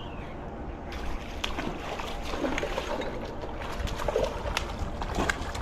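Water sloshing and splashing with scattered sharp clicks as a hooked smallmouth bass is fought and brought in at the creek's surface.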